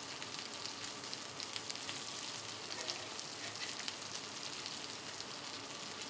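Chicken wings and slider buns sizzling on a Griddle Master flat-top griddle: a steady frying hiss with fine crackles throughout.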